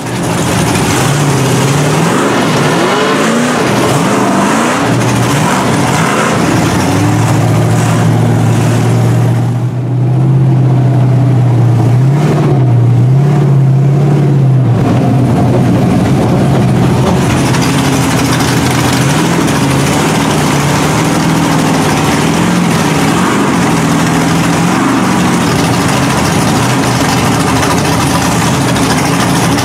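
Lifted mud truck's engine running and revving up and down as it pushes through deep flood water. From about ten to fifteen seconds in it settles into a steadier, deeper drone.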